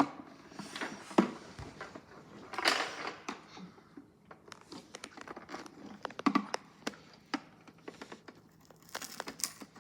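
Toy washing machine's plastic casing being handled and pried at while a part stays stuck: scattered sharp plastic clicks, creaks and short scrapes, a longer scrape about three seconds in.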